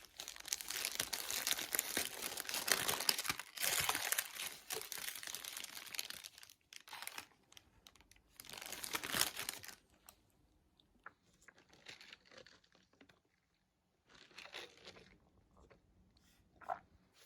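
Crinkling and rustling handling noise: one long stretch for the first six seconds or so, then several shorter bursts and a few light clicks.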